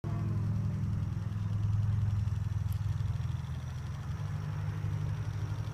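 A motor or engine running steadily, a low hum with a fast, even pulse. A bird chirps briefly at the very start.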